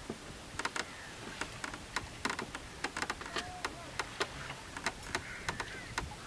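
Irregular sharp clicks and taps, a few to several a second, with faint bird calls in the background.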